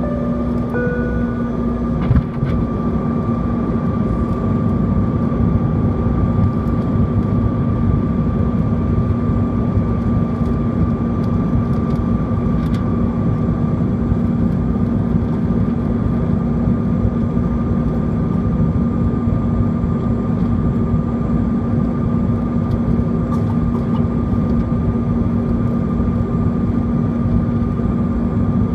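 Cabin noise inside a Bombardier CRJ-200 airliner on descent: steady rushing airflow and the drone of its two rear-mounted GE CF34 turbofans, with a steady hum running under it. A brief two-note tone sounds just under a second in, and a sharp click comes about two seconds in.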